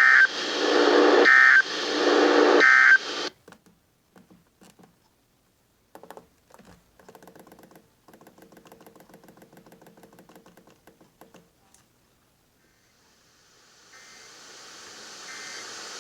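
Emergency Alert System end-of-message data bursts: harsh, screechy digital tones repeating about once a second, which cut off about three seconds in. After them come faint clicks and a faint low hum, and radio static fades up near the end.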